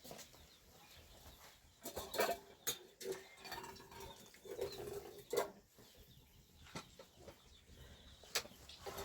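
Short farmyard animal calls, with several sharp knocks and clicks scattered through.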